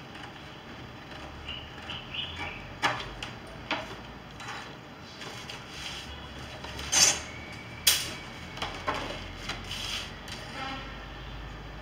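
Paper pattern sheets being handled on a wooden table: scattered rustling and sliding, with two sharp crackles or knocks about seven and eight seconds in.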